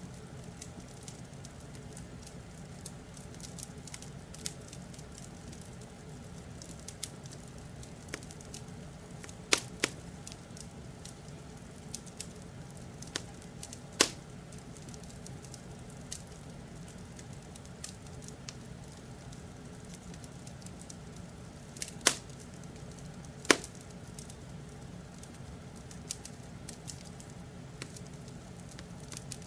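Wood fire crackling, with scattered small snaps and a few louder pops, over a steady low hum.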